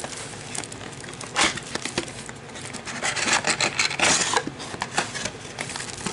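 Cardboard box of trading card packs being opened and the packs slid out: irregular cardboard rubbing and scraping with small clicks, loudest about a second and a half in and again around three to four seconds in.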